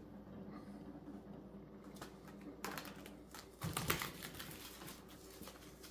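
Plastic cling wrap crackling and crinkling as it is stretched over a baking dish and pressed down around the rim, with a cluster of faint crackles loudest about four seconds in.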